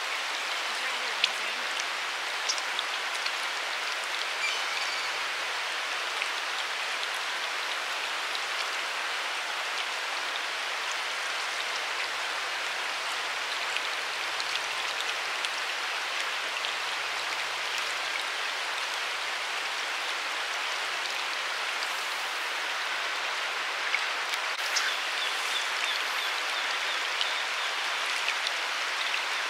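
Steady rush of flowing river water, with scattered small ticks and splashes.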